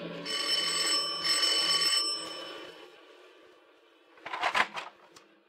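Electric doorbell ringing, a radio-drama sound effect: two rings of about a second each in quick succession, then fading out. A short burst of sound follows a couple of seconds later.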